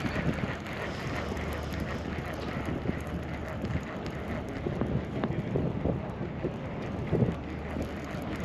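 Wind buffeting the microphone: a steady rushing noise with irregular low thumps, the strongest near the end.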